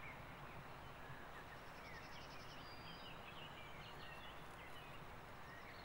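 Faint outdoor background hiss with scattered small bird chirps and calls. A short rapid trill comes about two seconds in.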